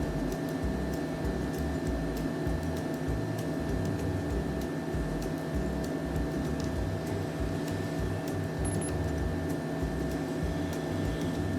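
Steady mechanical hum of a room appliance, with a constant whine over a low rumble and a few faint ticks.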